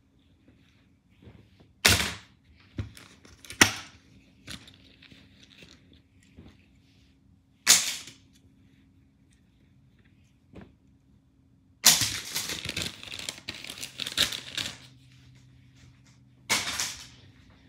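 Clothes and plastic hangers being handled: a few sharp snaps and clacks as shirts are pulled off pink plastic hangers and folded, then a few seconds of busy fabric rustling and crinkling, and another sharp snap near the end.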